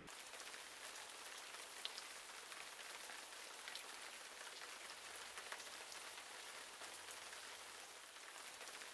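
Faint steady rain hiss with scattered small drop ticks.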